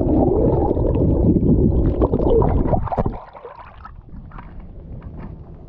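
Kayak on open water: water sloshing and paddling sounds with wind on the microphone, loud for about the first three seconds, then dropping to a quieter wash with scattered small knocks.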